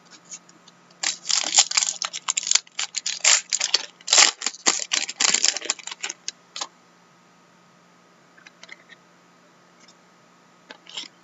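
Trading cards being handled and flipped through by hand: a quick run of crisp clicks and rustles for several seconds, then a few faint ticks and a short rustle near the end.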